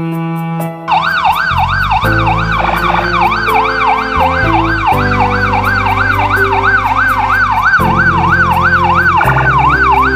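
Police siren in a fast wail, its pitch rising and falling about three times a second, starting about a second in, over background music with sustained string and piano tones.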